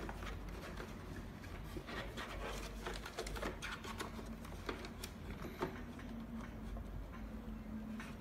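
Irregular light clicks and taps as a plastic cuff bracket and fabric cuff are handled and fitted into the arm tunnel of a blood pressure monitor.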